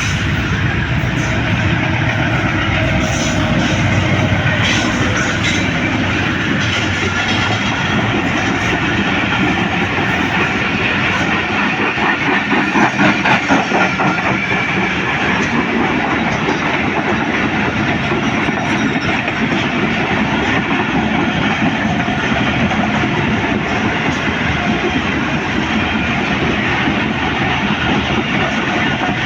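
Train of passenger coaches passing close by: a steady rumble of wheels on the track, with a rhythmic clickety-clack over the rail joints that is strongest about halfway through.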